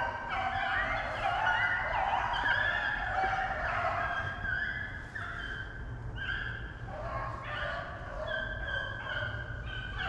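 A pack of rabbit-hunting dogs baying together, several voices overlapping in long, held, wavering notes: the pack is on a rabbit's trail, running it.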